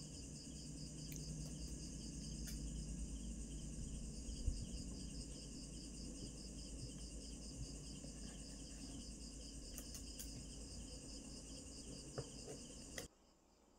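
Crickets trilling steadily, a continuous fast-pulsing chirr, with a few faint sharp clicks from steel nail nippers snipping toenail; everything cuts off suddenly near the end.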